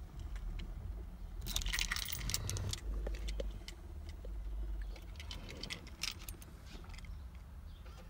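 Car keys jangling in two short spells of clinks, about a second and a half in and again near six seconds, over a low rumble from the phone being handled.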